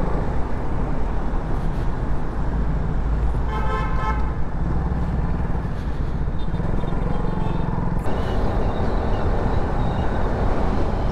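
KTM Duke 200 single-cylinder motorcycle engine running under way, with steady road and wind noise. A vehicle horn beeps once, for about a second, roughly three and a half seconds in.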